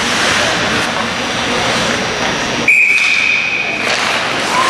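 Steady echoing noise of an ice arena during play, with a referee's whistle blown once, a single steady shrill tone of about a second, a little past halfway through.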